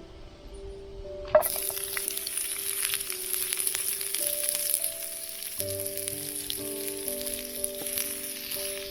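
Food sizzling in a hot pan. The sizzle starts abruptly about a second and a half in with a sharp clack as the food goes in, then crackles on steadily under background music.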